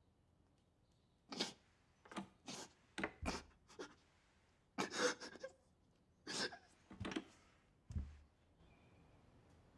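A man crying: about a dozen short, breathy sobbing gasps and sniffs in uneven bursts, stopping about two seconds before the end.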